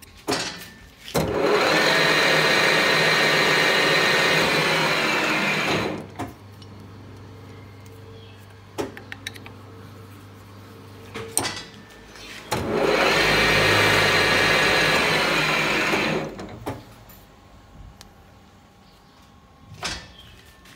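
Metal lathe spinning a workpiece in its chuck while the tool takes a skim cut. Twice there is a loud stretch of cutting noise with a steady high ring, each four to five seconds long. Between them the motor hums lower, with a few sharp clicks and knocks.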